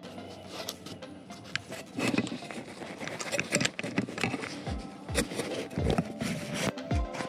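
Muffled scraping and rustling of a Kevlar shock cord and recovery gear being pushed into a model rocket's body tube, picked up from inside the airframe. There are scattered small clicks, and several dull knocks in the second half.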